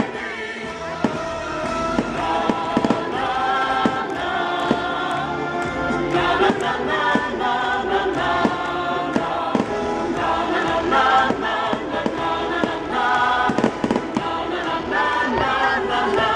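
Fireworks salute going off, scattered bangs of bursting shells heard over music with a choir singing.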